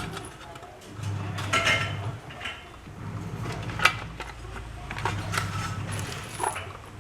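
Metal parts of a wheeled washing-machine base clinking and knocking as they are handled and fitted together, a few sharp clicks over a low hum that comes and goes.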